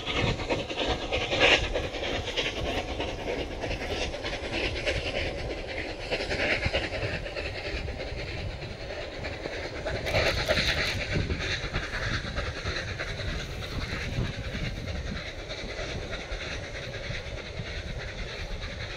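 The Flying Scotsman, an LNER A3 steam locomotive, and its train of coaches crossing a viaduct, heard from a distance: a steady rumble and clatter of wheels on rails.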